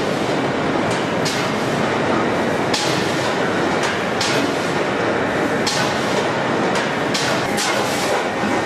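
Steady loud din of sheet-metal handling machinery on a car-body press line, with about ten short sharp noises at uneven intervals.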